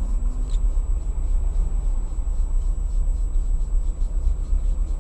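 Low, steady rumble of a car engine idling, picked up by a dashcam inside the stopped car, with a faint steady high-pitched tone over it and a single click about half a second in.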